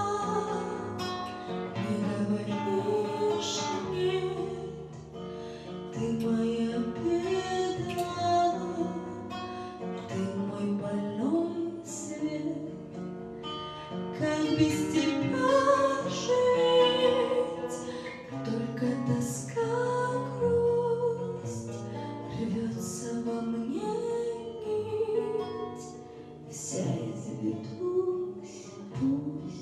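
A woman singing a Russian-language song live into a microphone, accompanied by guitar.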